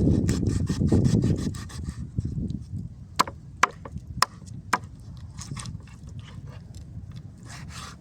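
Rapid rasping strokes on wood for about two seconds, then four sharp knocks about half a second apart, followed by quieter, scattered scraping.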